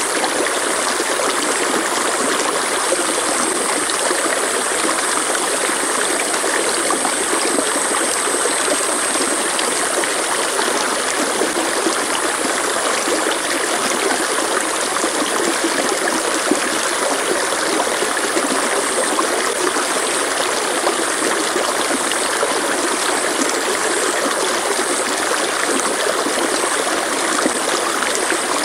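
Stream water flowing, a steady, unbroken rushing and babbling.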